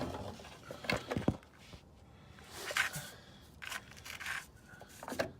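Handling noises of a new diesel fuel filter element being fitted into its plastic filter cap: a series of short scrapes and clicks.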